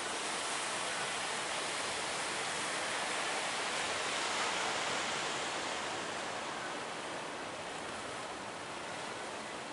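Ocean surf: a continuous rush of breaking waves that swells to its loudest about halfway through and then eases off.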